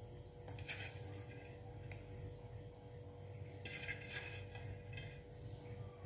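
Soft rustle of green peas being sprinkled by hand onto the vegetables in a clay tagine, heard twice, over a steady low electrical hum.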